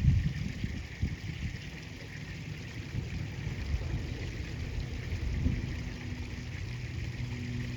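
River water flowing and trickling, with a low rumble and a single thump at the very start.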